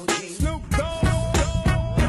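Background music with a steady drum beat and a long held note starting about a second in.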